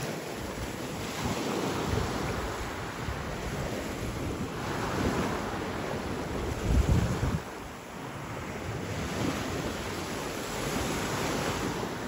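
Small waves breaking and washing up the beach, the rush swelling and fading every few seconds. Wind buffets the microphone in low gusts, the strongest about seven seconds in.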